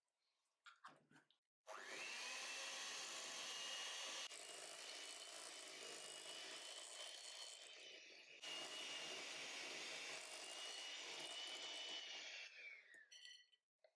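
Electric hand mixer starting up about two seconds in and running steadily with a high motor whine, its beaters whisking butter, cocoa powder, icing sugar and cream into a thick chocolate icing in a glass bowl, then winding down near the end. A couple of soft knocks come just before it starts.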